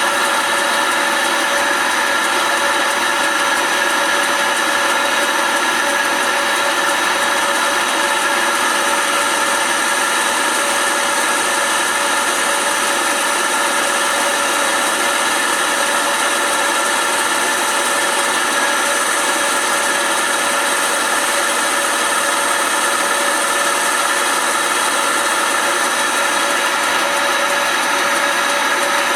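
Smart and Brown model L metal lathe running steadily while turning a wooden file handle: a constant whine of several tones over an even hiss.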